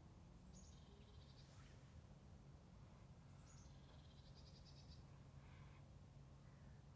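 Faint songbird singing a short phrase twice, about three seconds apart: a high note followed by a rapid trill. Under it runs a low, steady background hum.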